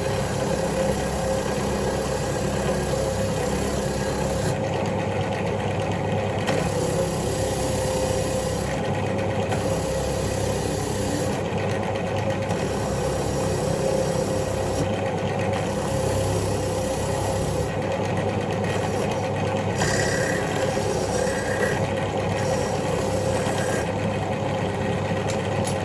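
Electric power tool running steadily at constant speed while a rusty MX5 subframe bolt held in mole grips is cleaned on it. A hissing scrape comes and goes every one to three seconds as the bolt is pressed on and taken off.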